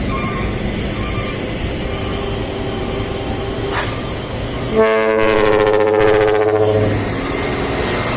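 Steady truck engine and road noise, then about five seconds in a single trumpet-style air horn blast of several tones sounding together, about two seconds long, before the engine noise carries on.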